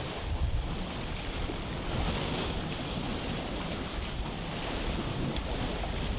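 Wind buffeting the microphone over the steady wash of the sea against a rocky shore.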